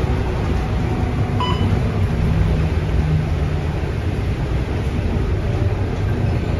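Cabin noise of a Scania K230UB single-decker bus under way: the steady low drone of its diesel engine and drivetrain. A short electronic beep sounds about a second and a half in.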